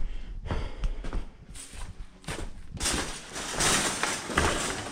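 Footsteps with scuffs and rustling as someone walks around searching. A louder stretch of rustling noise comes from about three seconds in to about four and a half.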